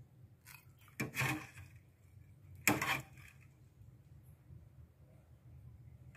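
Metal ladle knocking and scraping against a stainless steel pot of crab soup as it is stirred, two short clatters about a second and a half apart, over a low steady hum.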